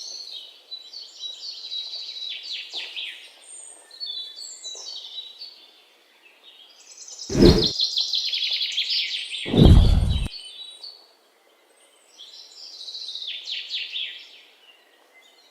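A songbird singing repeated phrases of quick, high chirps, with gaps between phrases. Two dull thumps come through about seven and a half and ten seconds in.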